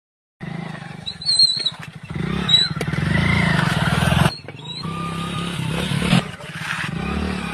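An engine running steadily, its hum dropping out briefly about four seconds in before it resumes.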